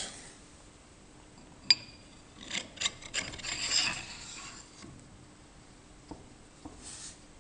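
Oiled steel barrel being slid into the bore of a Myford 254 lathe tailstock: a sharp metallic click about two seconds in, then metal rubbing and scraping against metal, with a few light ticks near the end.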